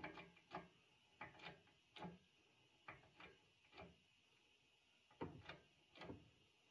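Faint, irregular metallic clicks and ticks, about a dozen, from a hydraulic shop press being worked to press a 16003 bearing onto a shaft.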